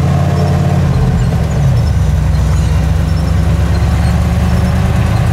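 Turbocharged Suburban driving, heard from inside the cab: a steady low engine and road drone, its pitch shifting about a second and a half in.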